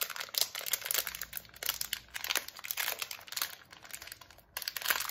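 Crinkly orange blind-bag wrapper being pulled and torn open by hand: a dense run of irregular crinkles and crackles, with a brief lull about four and a half seconds in.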